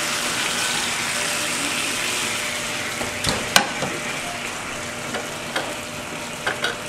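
Oil and leftover bits of chicken sizzling in a hot nonstick frying pan, the sizzle slowly dying down. A few sharp clicks about halfway through and near the end.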